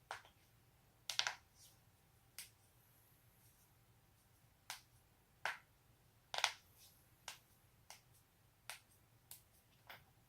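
Human joints being cracked: about a dozen sharp pops spread irregularly, a few coming in quick doubles or triples.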